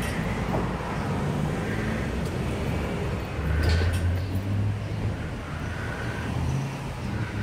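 Street traffic: a motor vehicle's engine running close by, a steady low rumble that swells for about a second about halfway through.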